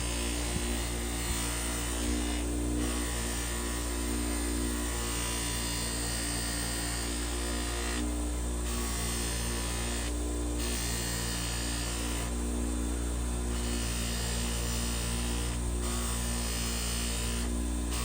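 Bench grinder fitted with a buffing wheel running with a steady hum, while a steel knife blade is held against the wheel, making a hiss that breaks off for short moments several times as the blade is lifted and repositioned.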